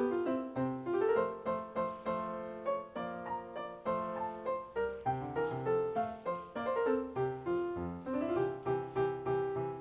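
Background piano music: gentle notes played at a steady, even pace, with chords under a melody.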